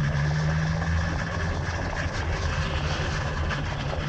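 Motorcycle engine running at low speed with a steady low note, heard from the rider's own bike along with road and wind noise.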